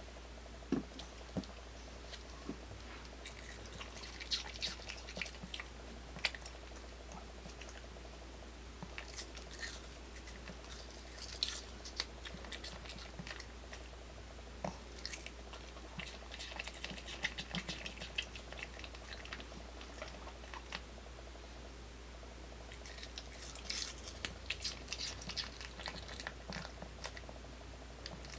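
A dog chewing pieces of apple: crisp, wet crunching in bursts with short pauses between.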